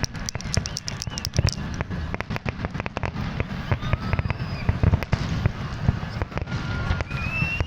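Fireworks display: rapid bangs and crackles one after another over a continuous low rumble, with a few short whistles, the clearest near the end.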